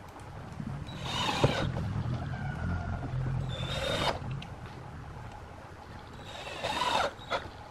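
Cordless drill/driver driving screws into a pine box, in three short bursts of the motor: about a second in, near four seconds, and near seven seconds.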